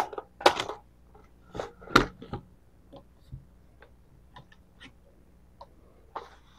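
Scattered clicks and knocks of a .308 rifle being handled and settled on its bipod, a few sharper knocks in the first two seconds, then fainter ticks.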